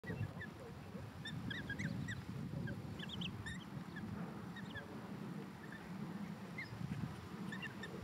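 Eurasian coot chicks giving short, high peeping calls over and over while the family feeds, over a steady low background noise.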